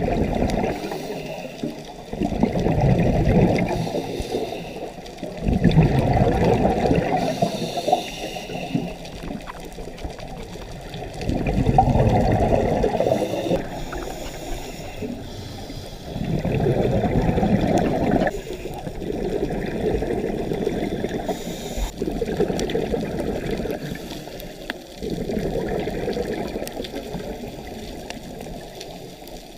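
Scuba divers' exhaled air bubbling out of the regulator, heard underwater: a muffled, rumbling burst of bubbles every four to five seconds in time with the breathing, over a steady low underwater hiss.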